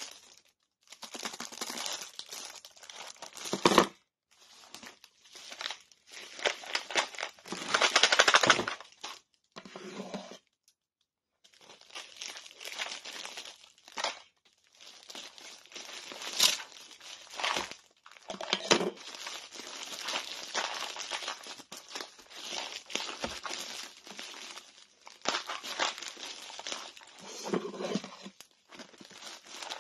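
Plastic packaging crinkling and rustling as it is handled and opened, in irregular bursts with a few short pauses.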